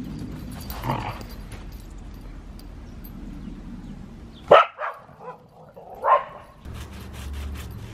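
Australian cattle dogs barking during play: a short bark about a second in, then a sharp loud bark about four and a half seconds in followed by a few shorter yips, and another loud bark a second and a half later.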